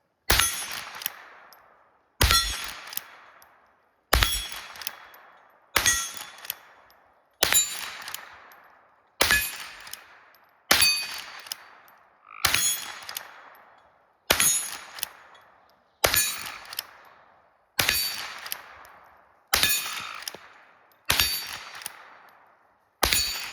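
Henry lever-action .22 LR rifle firing 40-grain Remington Ranch Hand rounds in a steady string, about fourteen shots roughly 1.7 seconds apart. Each shot is followed by a ringing clang from a steel gong being hit.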